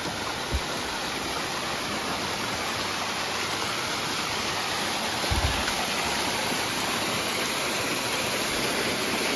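Snowmelt waterfall cascading down a rocky slope: a steady, full rush of falling water that grows slightly louder. Two dull low thumps, about half a second and five seconds in.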